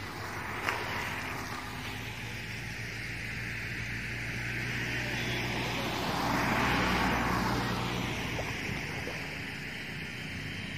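A road vehicle passing: its engine and tyre noise swells to a peak about seven seconds in, then fades, over a steady low hum. A single sharp click comes shortly after the start.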